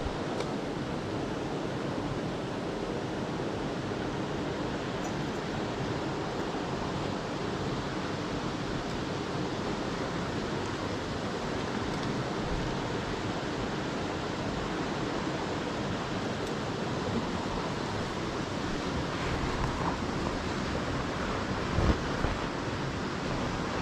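Mountain stream water rushing steadily over rocks, an even hiss with no letup, with a couple of brief low thumps near the end.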